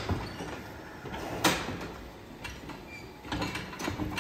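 Scattered metal knocks and clanks from a steel cattle hoof-trimming crate holding a cow, with one sharp knock about a second and a half in and a cluster of smaller ones near the end.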